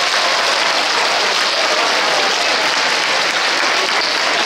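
A large crowd applauding steadily at the end of a fireworks show.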